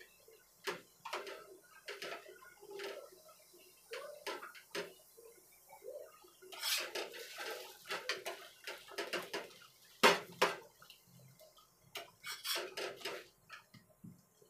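Metal spatula scraping and knocking on a flat frying pan as an egg-coated paratha is pressed and turned: a string of short scrapes and clicks, with the loudest clank about ten seconds in.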